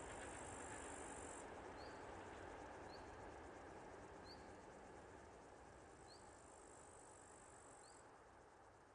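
A passing train's rumble fading away into the distance, dying down slowly. Over it, crickets trill in a high steady buzz that stops about a second and a half in and returns for a couple of seconds later, and short rising chirps come about once a second.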